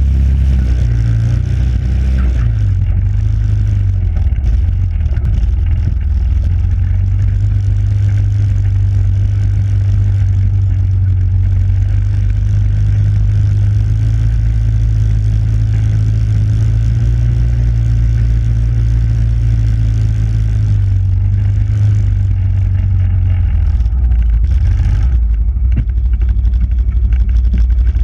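ATV engine running at low speed, a steady low drone whose pitch rises about a second in and drops about three-quarters of the way through.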